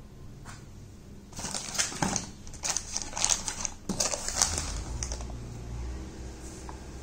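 Product packaging being handled: a plastic bag and a small cardboard box crinkling and tapping in a quick run of crackles that starts just over a second in and stops about five seconds in.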